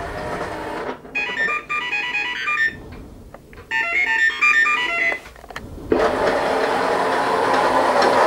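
Tomy OmniBot 5402 toy robot playing its electronic sound effect, a quick run of beeps about a second in and another near four seconds. From about six seconds its drive motors run steadily as it moves off.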